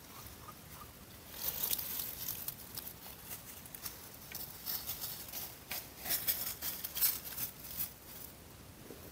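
Dry fallen leaves rustling and crackling in short, irregular rustles under someone's feet or movement, starting about a second and a half in and dying away near the end.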